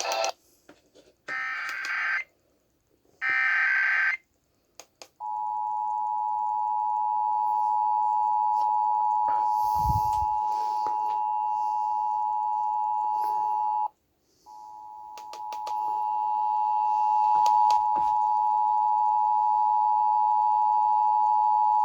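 Emergency Alert System tones: the screeching digital header bursts, the last two of three in full, followed by the steady two-tone attention signal. The attention signal cuts out for about half a second midway, then resumes.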